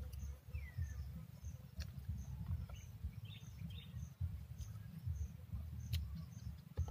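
Outdoor ambience: an insect chirping steadily at a high pitch, a little under twice a second, over a low, uneven rumble, with one short falling bird call about half a second in and a few faint clicks.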